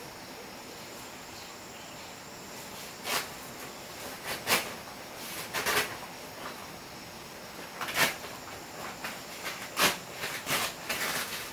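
Irregular sharp scrapes and knocks, the loudest about halfway through and again near the end, over a faint steady hiss.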